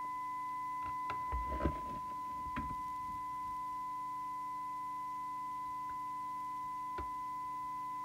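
Cobra 29LXEU CB radio's loudspeaker playing a steady test tone received from a signal generator, with a faint hum beneath it. A few light knocks from handling the radio between about one and three seconds in, and a single click about seven seconds in.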